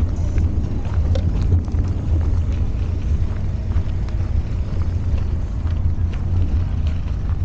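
Steady low rumble of wind buffeting the microphone, mixed with road noise, while riding an electric scooter.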